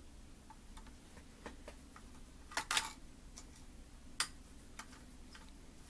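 Small screws being driven back into a hard drive mounting bracket with a small screwdriver: light irregular ticks and clicks of metal on metal, with a few louder clicks about two and a half seconds in and again about four seconds in, over a faint steady hum.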